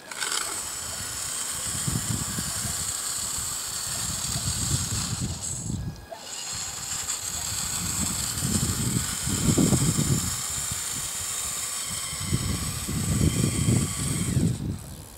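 RC model wheel loader (Bruder CAT) running: a steady high whine from its small electric motors, which cuts out briefly about six seconds in and again at the end, with louder low grinding in three stretches as it drives over the gravel.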